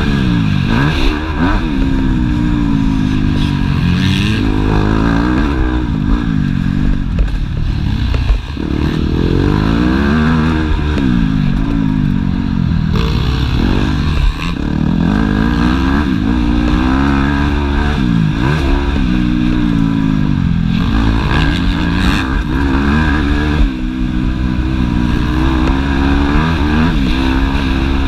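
Yamaha YZ250F's 250 cc four-stroke single-cylinder engine heard from on the bike, revving up and dropping back again and again as the rider works the throttle and gears around the motocross track, with a few brief dips where the throttle is chopped.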